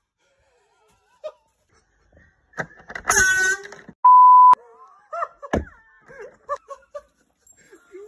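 An air horn blast about three seconds in, followed straight away by a loud half-second censor bleep, then faint startled voice sounds.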